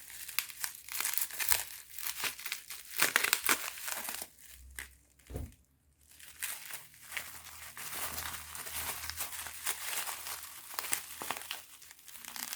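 Bubble wrap and plastic packaging crinkling and rustling as it is handled and unwrapped, with a lull about five seconds in.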